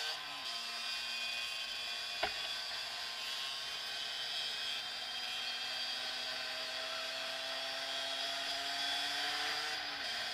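Derbi X-Treme motorcycle engine heard from the rider's seat while riding: a steady high-pitched note that climbs slowly as it pulls through a gear, then drops near the end, over wind noise. A single short knock about two seconds in.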